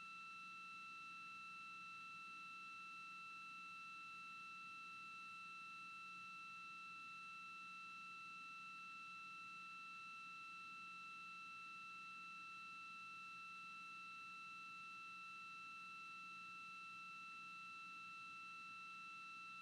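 Near silence apart from a faint, steady high-pitched electronic tone with its overtones and a faint low hum underneath, neither changing.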